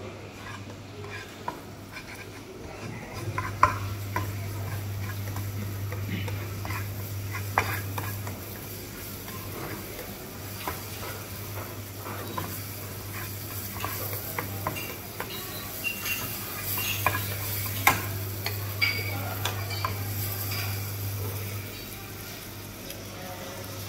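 Chopped vegetables sizzling in hot oil in a small nonstick wok while a plastic spatula stirs and scrapes them, with sharp taps of the spatula on the pan. A low hum comes in twice, for several seconds each time.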